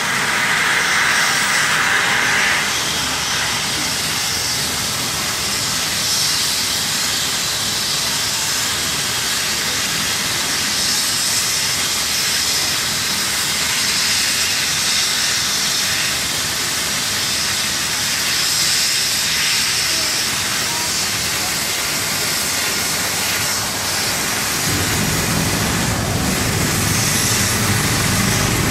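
ADAC rescue helicopter's turbine engines running on the ground, a steady high hissing whine. Near the end a deeper rumble joins in.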